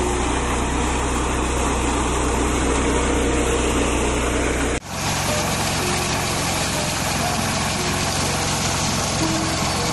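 Mini combine harvester's 14 hp diesel engine and threshing machinery running steadily. About halfway through the sound changes abruptly and the deep low hum drops away.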